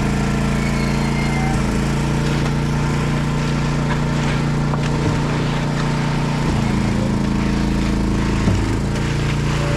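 Engine running steadily at a constant speed, its pitch stepping a little about six and a half seconds in, with a short knock near the end.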